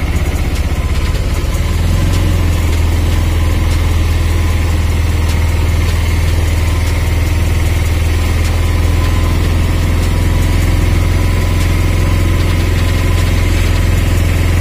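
Engine of a moving vehicle running steadily, heard from inside the vehicle as a deep, constant hum that grows a little louder about two seconds in.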